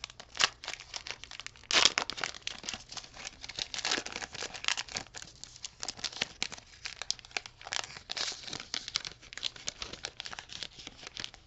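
Foil trading card pack being torn open and crinkled in the hands: dense crackling throughout, loudest about two seconds in.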